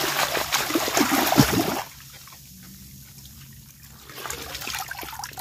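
Water splashing as a large basket is swept through shallow ditch water to scoop fish, for nearly two seconds, then a lull, then softer trickling and dripping near the end as water drains through the basket.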